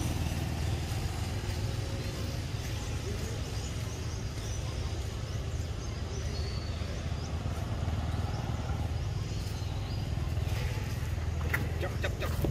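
Steady low engine-like rumble. Near the end come a few light crackles of dry leaves as a baby macaque scampers across the leaf litter.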